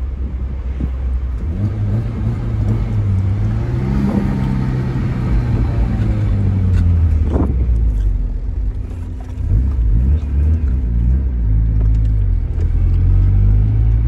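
Tofaş Doğan SLX's four-cylinder engine, through an aftermarket Varex exhaust, heard from inside the cabin as the car accelerates. The engine note climbs over the first few seconds, dips briefly about nine seconds in, then climbs again.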